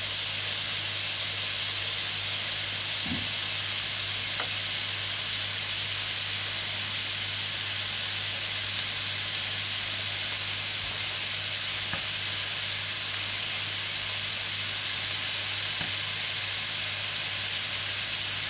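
Chanterelle mushrooms frying in a hot pan, a steady sizzle now that the wine has cooked off. A steady low hum runs underneath, with a few faint ticks.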